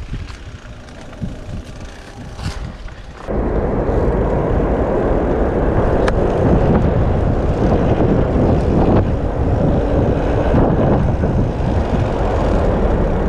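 Wind rushing over the microphone and rumble from a mountain bike rolling along a dirt trail. The noise jumps abruptly much louder about three seconds in and then stays steady.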